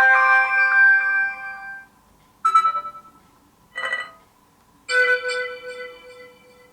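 Built-in notification tones of a BQ Aquaris 4 Android phone, played one after another. First a short multi-note electronic chime, then two brief blips about a second apart, then a ringing chime that fades out.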